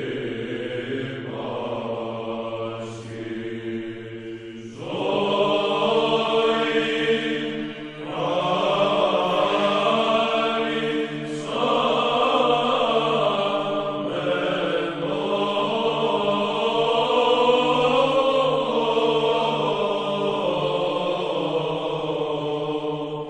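Byzantine chant sung by men's voices: a steady low drone (the ison) held under a moving chanted melody. It is soft for the first few seconds and becomes fuller about five seconds in, with brief breaks between phrases.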